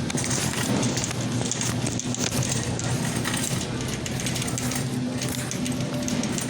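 Grocery store background noise: a steady low hum under a busy run of small clicks and rattles, like items and a cart being handled.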